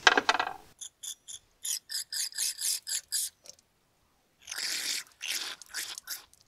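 Aerosol brake cleaner sprayed through its straw in bursts: a quick run of short hisses, then a few longer ones, flushing soot deposits out of a clogged boost-line banjo fitting.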